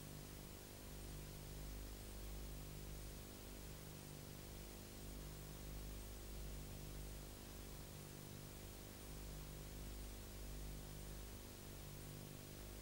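Faint steady hiss with a low electrical hum that swells and fades slowly and regularly, every second or two: the noise floor of a silent-film transfer with no soundtrack.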